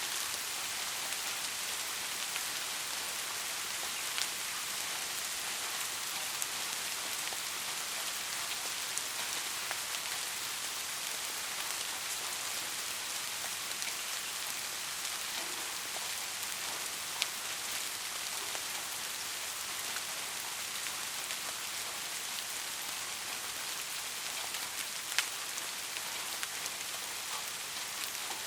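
Steady rain falling, an even hiss with scattered individual drops ticking close by, a few of them sharper, at about 4, 17 and 25 seconds in.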